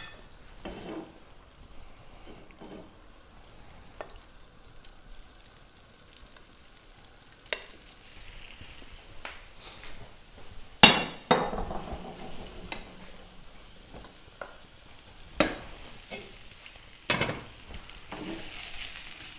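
Shrimp sautéing in butter in a frying pan, with a steady sizzle as a wooden spatula stirs them. Several sharp knocks of utensils and dishes against the pan and counter break in, the loudest about eleven seconds in.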